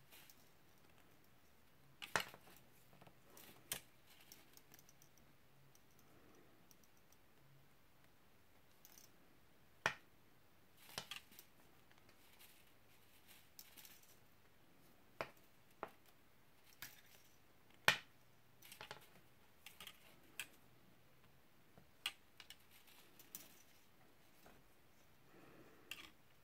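Silver-plated copper wire being worked by hand: irregular sharp clicks and ticks as the wire is wrapped and bent, about a dozen or more spread unevenly, over faint room hiss.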